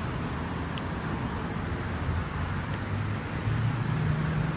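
Steady low rumble of road traffic, with an engine hum growing a little louder about three and a half seconds in.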